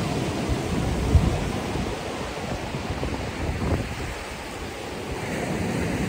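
Atlantic Ocean surf washing on the beach, with gusts of wind buffeting the microphone in low rumbles, one sharp buffet about a second in.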